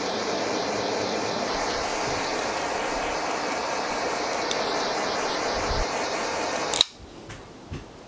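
A small handheld propane torch hisses steadily as its flame shrinks heat-shrink tubing over a crimped butt splice. The hiss cuts off suddenly with a click near the end as the torch is shut off.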